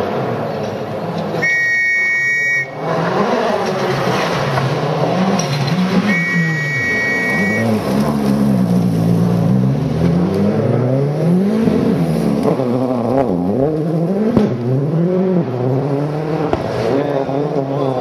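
Ford Focus WRC rally car's turbocharged four-cylinder engine revving hard, its note climbing and dropping again and again through gear changes and lifts as it comes through the stage. Two long, high whistle blasts sound, near the start and about six seconds in.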